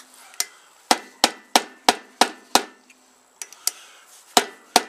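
Hammer blows on a Tecumseh small engine's flywheel, driving it down onto the crankshaft over its key: about eleven sharp, ringing metal strikes, a quick run of about three a second, then a few more spaced further apart.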